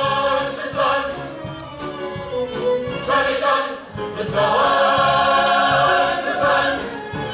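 A stage-musical cast singing together in chorus over instrumental accompaniment. The voices hold a long note at the start and another from about four seconds in, with shorter sung notes between them.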